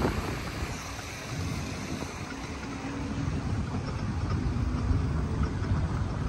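Outdoor wind buffeting a phone's microphone: an uneven low rumble.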